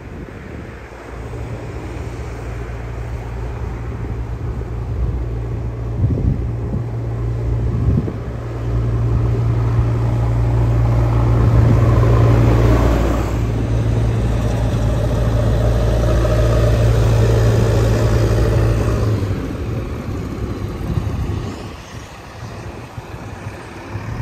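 Backhoe loader's diesel engine running with a steady low drone. It grows louder about eight seconds in, holds for about ten seconds, then eases off.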